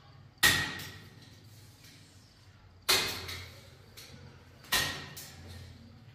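Three sharp slaps, about a second or two apart, as paper photos are pressed by hand onto a bare plastered wall; each one rings briefly in the room.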